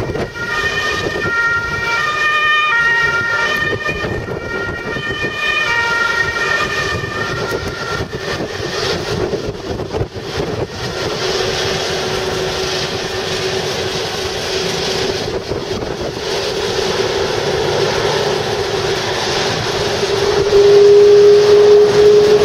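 Boeing 777-300 jet engines running at low thrust as the airliner taxis, a steady whine and rumble, with a high tone stepping between several pitches over the first several seconds. Near the end the noise jumps louder and a steady tone rises as the engines spool up to takeoff thrust.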